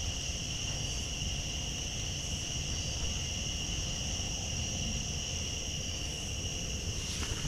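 A steady chorus of night insects, a continuous high two-pitched shrill with no pauses, over a low rumble.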